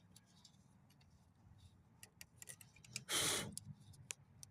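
Light clicks and scrapes of a tool picking old debris out of a plastic shift cable end housing, with a short hissing rush about three seconds in.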